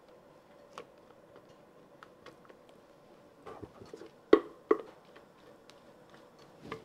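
Thick cake batter pouring from a glass mixing bowl into a glass baking dish: faint soft plops and small ticks, with two sharp knocks in quick succession just past the middle, the loudest sounds, from the bowl against the dish. A faint steady hum runs underneath.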